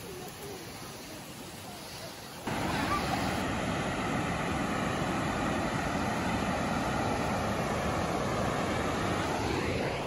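Steady rushing roar of a large waterfall in heavy flow, starting abruptly about two and a half seconds in after quieter outdoor ambience.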